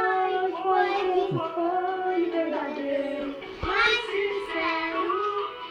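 A young child singing a melody in a high, wavering voice, with a short break about three and a half seconds in.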